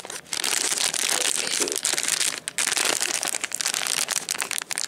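Clear plastic bags crinkling and crackling as they are handled and turned over, with a brief pause about halfway through.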